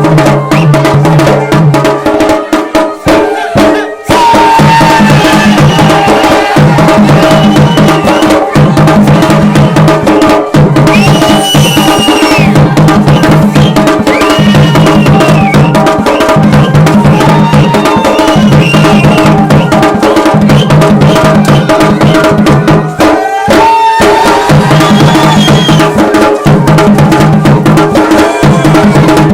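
Garhwali dhol and damau drums playing a fast, steady rhythm, with a melody line above them that slides up and down in pitch. The drumming breaks off briefly about three seconds in and again near twenty-three seconds.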